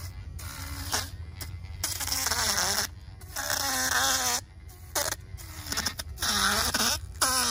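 Hand-held electric fish descaler running in repeated short bursts against a redfish's large scales. Its motor whine dips and rises in pitch, over a scraping hiss.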